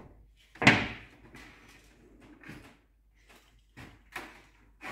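A sharp knock about half a second in, then a few lighter knocks and scrapes, as a spirit level is set and shifted against a drywall sheet and a pencil marks it.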